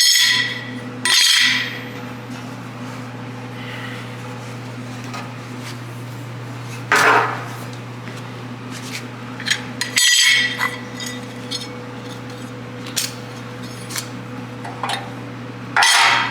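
Quarter-inch aluminum plate brackets being handled, giving a handful of sharp metallic clanks with a brief ring, several seconds apart, over a steady low hum.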